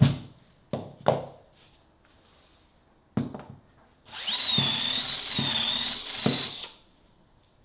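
Cordless drill spinning a UJK reamer in a bench dog hole for about two and a half seconds, a steady high whine, enlarging a hole that is too tight for the 20 mm hold-down clamp's shaft. Before it come a few sharp knocks as the clamp's steel shaft is worked in the hole.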